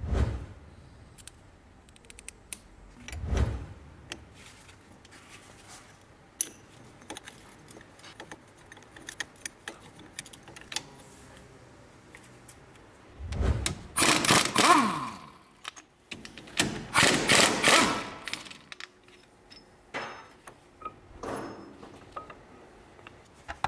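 Metal brake parts and hand tools being handled at a van's front brake caliper: scattered clicks and clinks, a couple of dull knocks, and two louder scraping, rattling stretches about fourteen and seventeen seconds in.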